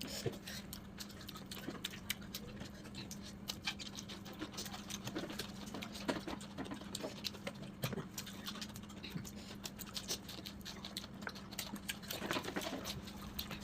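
A person eating close to the microphone: chewing and mouth smacking as many small, irregular clicks, over a steady low hum.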